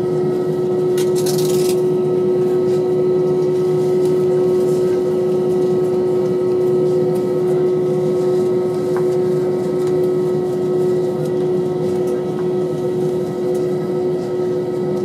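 Airbus A319 cabin noise: a steady hum of engines and air conditioning with a strong, unchanging drone. The pitch does not climb, so the engines are not yet spooling up for the takeoff roll.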